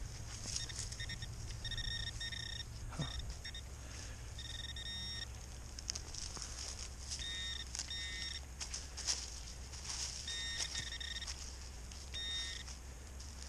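A metal detector beeping in short repeated pulses at one steady pitch, starting and stopping in groups as it sweeps over a target. Scattered light clicks in between.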